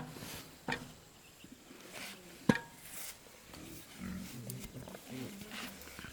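Metal engine parts being knocked with a tool: a soft tap near the start and a sharp, ringing metallic clink about two and a half seconds in.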